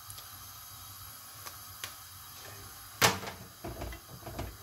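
Plastic spatula clicking and knocking against a small non-stick frying pan while loosening a crepe: a few light clicks, one sharp loud knock about three seconds in, then several softer thumps.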